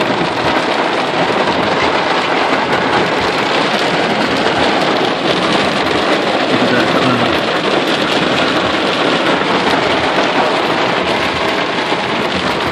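Heavy rain mixed with hail pelting a vehicle's roof and windshield: a dense, steady patter of countless small hits.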